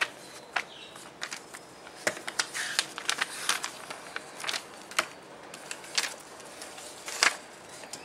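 Pages of a paper instruction booklet being leafed through by hand: irregular crisp rustles and small clicks of paper.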